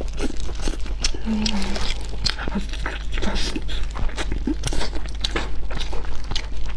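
Close-miked chewing of soft braised pork rib meat: a steady run of short wet mouth clicks and smacks.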